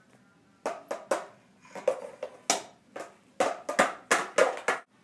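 Spoons knocking and clanking against metal mixing bowls as snow is scooped and stirred: an irregular run of about fifteen sharp knocks, starting just under a second in.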